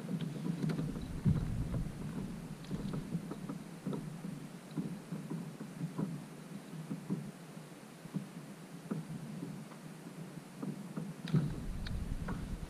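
Water slapping and lapping against a plastic kayak hull, with many small irregular knocks and taps carried through the hull to a camera mounted on it. A louder bump comes about a second in and another near the end.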